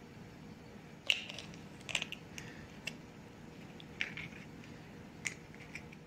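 Eggshells cracking and clicking as eggs are separated by hand: a sharp crack about a second in, then several lighter clicks and taps of shell.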